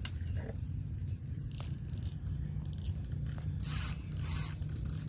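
Low, steady wind rumble on the microphone at the lake edge, with a short rasping scrape about three and a half seconds in.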